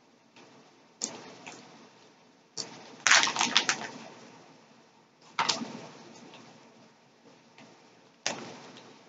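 Close-miked chewing of sugar-coated peach gummy rings: sticky, wet mouth clicks and smacks in a few separate bouts, the busiest a little after three seconds in.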